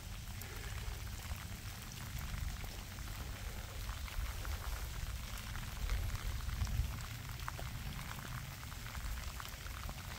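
Heavy rain falling steadily, with many small drop ticks close to the microphone over a low rumble.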